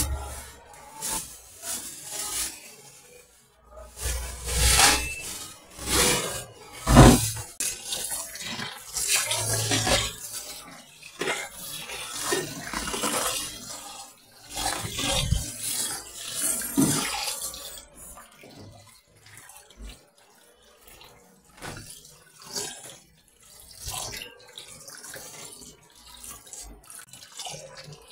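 Tap water running and splashing into a plastic basin in a kitchen sink while raw meat is rinsed by hand, with irregular splashes and clatter. The flow is steady and fuller for the first two-thirds, then gives way to quieter, broken splashing.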